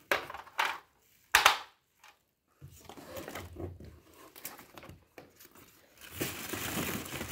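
Packaging being handled while a tower air cooler is unpacked: a cardboard box, foam inserts and plastic wrap scraping and crinkling. There are a few short scrapes, the loudest about a second and a half in, then a brief pause, and a steadier crinkle of plastic near the end.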